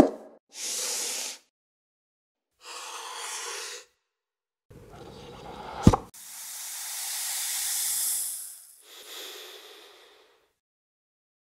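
Close-miked packaging sounds: a sharp tap as a small rigid box is set down, then two soft sliding rubs as its lid is worked off. About six seconds in, a rising whoosh ends in a sharp hit, followed by a long sparkling hiss that swells and fades. Near the end a person breathes in through the nose, sniffing the box.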